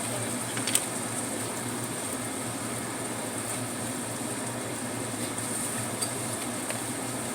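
Steady kitchen background noise, an even hiss and low hum from the stove area, with a single light clink about a second in and a fainter tick near the end.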